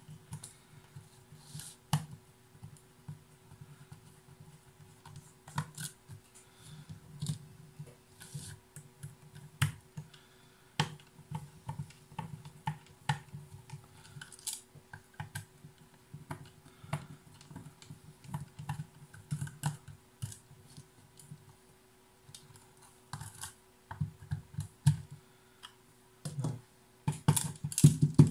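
Screwdriver undoing the small screws of a plastic portable radio-speaker case: irregular light clicks, ticks and scrapes of tool on screws and plastic, with dull handling knocks and a faint steady hum underneath.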